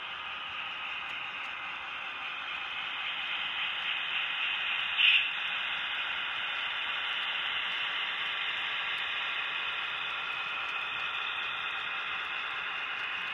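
HO-scale model train running past close up: a steady whirring hiss of the locomotive's motor and the wheels on the rails, swelling a little as the locomotive goes by. There is one sharp click about five seconds in.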